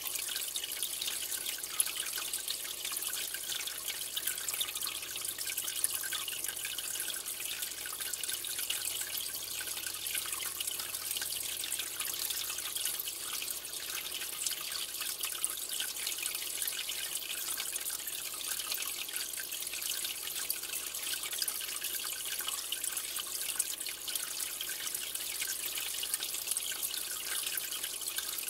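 Aquarium water trickling and dripping steadily, a continuous fine splashing hiss with many small drips.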